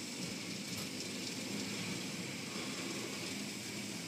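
Automatic car wash working over the car, heard from inside the cabin: cloth brush strips sweeping across the hood and water spraying down, a steady rushing noise.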